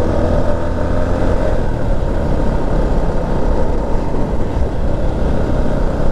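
Single-cylinder Herald motorcycle running steadily while being ridden at road speed.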